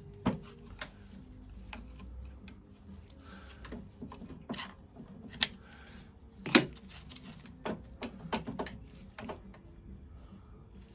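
Scattered metallic clinks and knocks from tools and parts as the side cover of a stationary engine's crankcase is worked loose, its seal cracked by tapping it side to side. The sharpest knock comes about six and a half seconds in, another just after the start.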